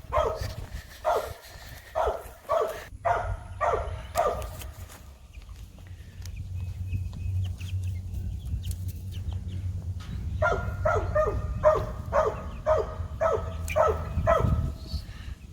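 A dog barking in quick, evenly spaced runs, about two to three barks a second: one run in the first few seconds and another starting about ten seconds in. A steady low rumble lies underneath.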